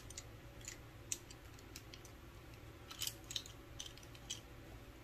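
Light scattered clicks and taps of small makeup items being handled, with a quick cluster about three seconds in.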